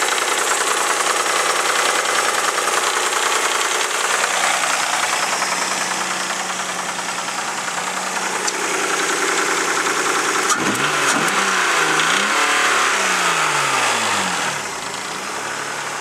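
Mazda MX-6's 2.5-litre V6 idling with a rapid ticking knock, which the owner suspects is a bad valve or a rod bearing going bad. It gets quieter near the end.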